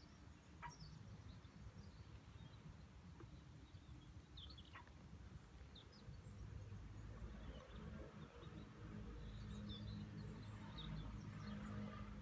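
Faint outdoor ambience: scattered short bird chirps over a low rumble, with a steady low hum growing louder from about seven seconds in.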